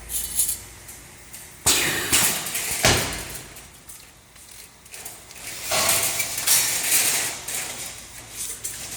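Metal parts clinking and clattering at a refrigerator-evaporator production machine: two sharp knocks about two and three seconds in, then a longer stretch of rattling near the middle.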